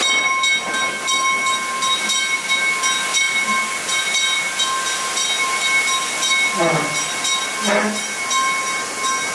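Ride-train wheels squealing steadily on curved steel track, a thin high squeal, over the hiss of a waterfall spilling beside the cars.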